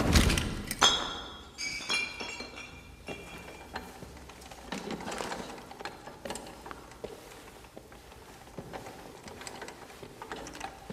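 Faint, irregular mechanical clicking and ticking in a quiet break of the music track. It follows a hit at the very start and a couple of seconds of ringing high tones.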